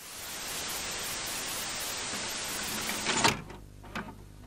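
Intro sound effect: a steady hiss of TV or tape static swells in. It ends a little past three seconds in with a short, loud glitch hit, followed by a couple of faint clicks.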